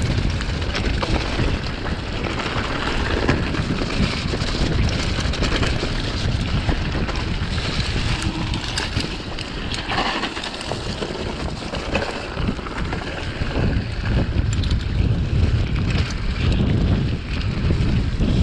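Wind buffeting the microphone of a mountain biker's action camera over the rumble of knobby tyres on a rocky dirt trail, with frequent rattles and knocks from the bike throughout the descent.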